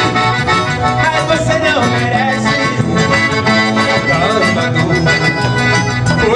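Live forró band playing, the piano accordion to the fore, over electric bass guitar and a zabumba drum.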